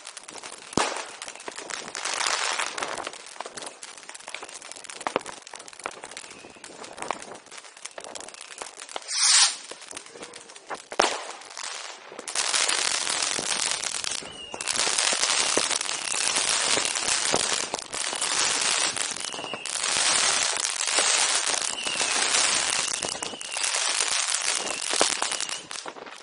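Firecrackers going off in rapid crackling volleys. The crackle is patchy at first, then almost continuous and louder from about halfway through, with a brief hiss partway in.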